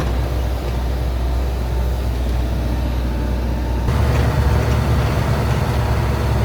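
Camper bus driving: steady engine and road noise with a strong low rumble, changing in character about four seconds in.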